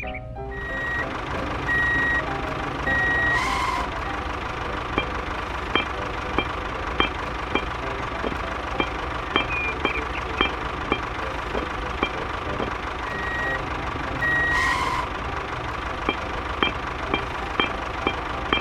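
Reversing-alarm style electronic beeping over a steady whine from a mini construction machine. Later comes a regular clicking with short high pips, a bit under two a second.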